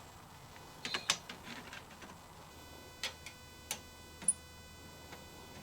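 A few light clicks and knocks of table frame pieces and clamps being handled and fitted, spaced irregularly: a quick pair about a second in, then single clicks. A faint steady hum starts about halfway through.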